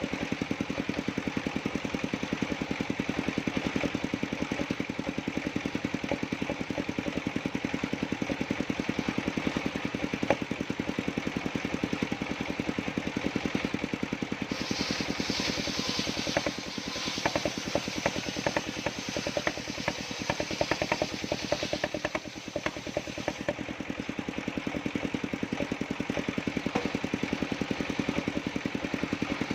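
Engine of a circular-saw sawmill running steadily with a fast, even beat. About halfway through, for some nine seconds, a hiss and irregular crackle join it as the blade cuts through dry jackfruit wood.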